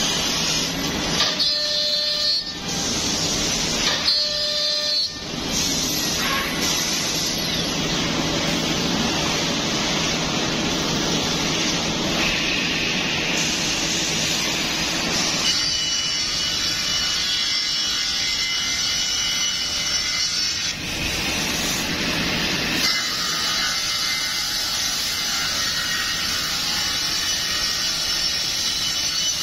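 Woodmaster 2.5D CNC machining centre cutting wood with its circular saw blade and router spindle: a loud, steady machining noise with high whining tones that come and go. It dips briefly twice in the first five seconds.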